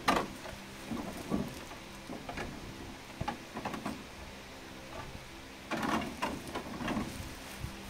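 Bubble wrap and a clear plastic blister tray crinkling and rustling as they are handled, in irregular bursts, with a sharp crackle right at the start and a busier stretch near the end.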